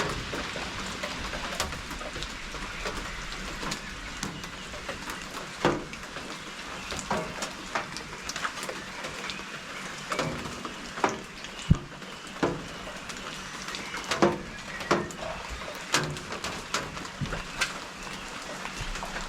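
Rain falling close to the microphone: a steady hiss with irregular light taps and clicks.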